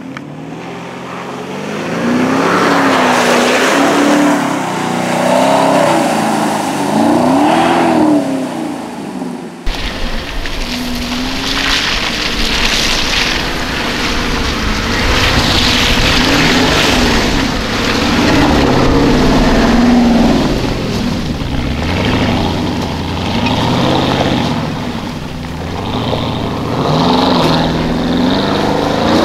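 Porsche Cayenne Turbo's twin-turbo 4.5-litre V8 revving up and down again and again as the SUV drives through mud and standing water on the trail. It is heard over a steady rush of noise, and a deeper rumble comes in abruptly about ten seconds in.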